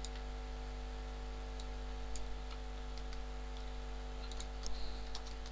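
A few faint, scattered clicks of a computer mouse in use, with a small cluster near the end, over a steady electrical hum.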